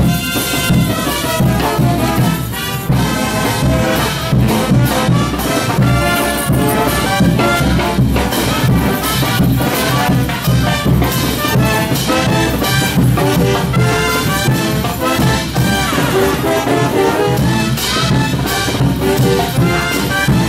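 Live brass band with drums playing loud, festive dance music with a steady beat.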